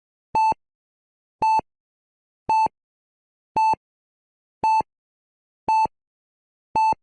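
Short electronic beeps, one steady tone each, repeating evenly about once a second, seven in all, with silence between.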